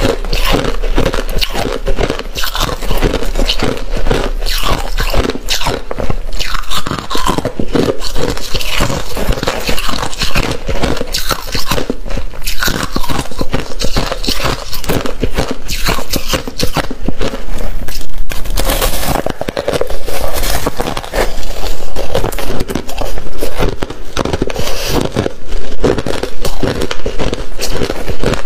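Close, loud crunching and scraping of packed white freezer frost, a dense run of crisp crackles with barely a pause.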